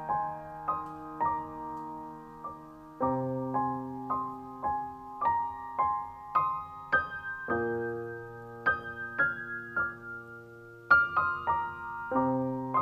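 Background piano music: a gentle melody of separate notes over held low chords that change every few seconds.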